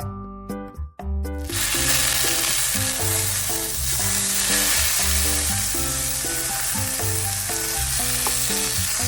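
Food sizzling in a hot frying pan, starting abruptly about a second and a half in and holding steady, over background music.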